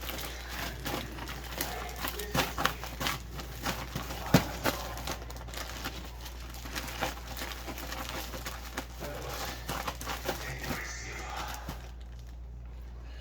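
Zip-top plastic bag being shaken with chicken pieces and flour inside: repeated rustling and crinkling of the plastic with soft thuds of the chicken, one sharper knock about four seconds in, dying away near the end. This is the chicken being coated in flour for frying.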